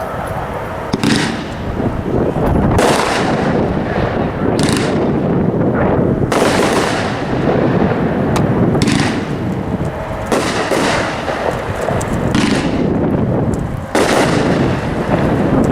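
Legend 'Rage in the Cage' 500-gram consumer fireworks cake firing: loud bangs about every one and a half to two seconds over a steady noisy rumble of shots.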